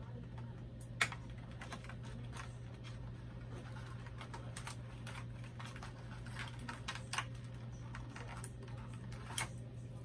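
Small plastic doll accessories and their packaging being handled by fingers: irregular light clicks and taps, with sharper clicks about a second in and near the end, over a steady low hum.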